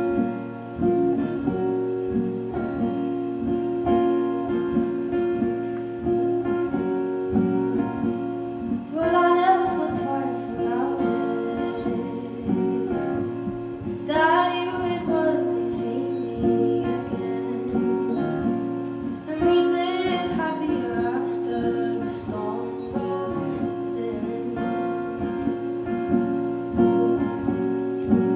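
Acoustic guitar strummed in a steady pattern, with a woman's voice singing short phrases over it about nine, fourteen and nineteen seconds in.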